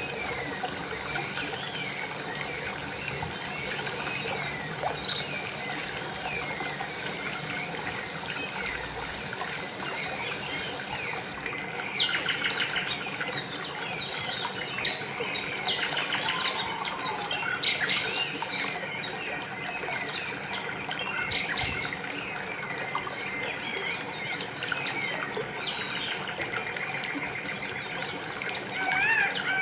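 A chorus of many birds chirping and singing at once, short overlapping calls throughout, busiest about twelve and sixteen seconds in.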